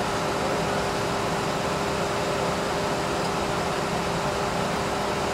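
A vehicle running at idle: a steady hum and hiss with a faint steady tone.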